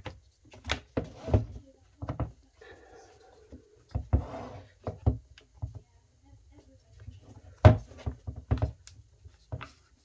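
Irregular sharp clicks and knocks with a stretch of rubbing in the middle: a Bosch GBH 24VFR SDS hammer drill's quick-change chuck being handled, its locking sleeve pushed forward to release the chuck from the drill.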